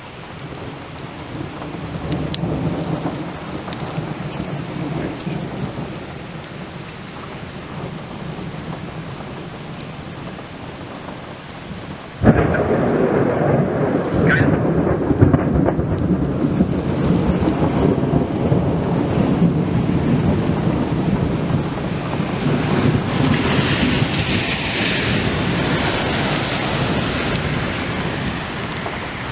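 Thunder rumbling over steady rain. About twelve seconds in, a close thunderclap cracks suddenly, followed by a long, loud rumble that slowly dies down.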